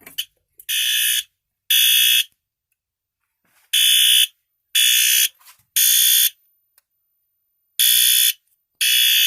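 System Sensor P2RL fire alarm horn strobe sounding in the code 3 temporal pattern: groups of three short, even horn blasts with a longer pause between groups, repeating about every four seconds. It signals that the fire alarm system has gone into alarm from the pulled pull station.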